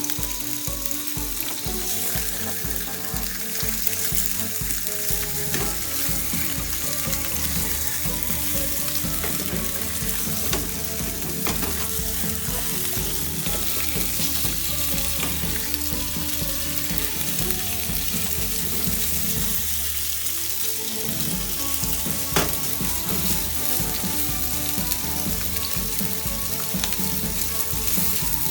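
Sea bass fillet frying in olive oil in a frying pan: a steady, even sizzle, with two sharp knocks partway through.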